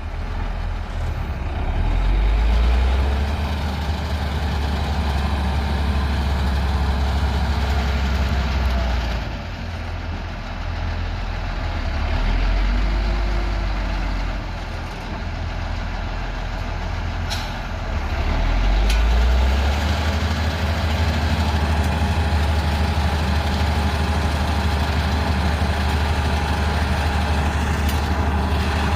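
Heavy diesel engine of earthmoving machinery running steadily, its low drone swelling and easing several times as the machine works under varying load.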